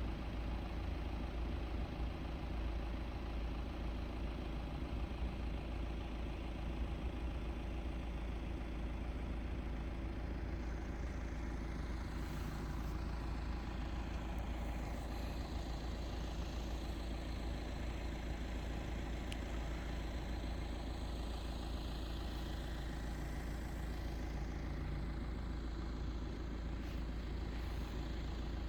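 Car engine and road noise while driving: a steady, even low drone with no sudden events.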